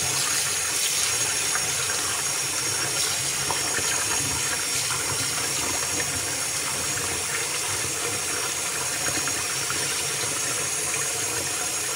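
Kitchen tap running steadily into a bowl of rice in a stainless steel sink, with the water stirred by a hand rubbing and swishing the rice to wash it.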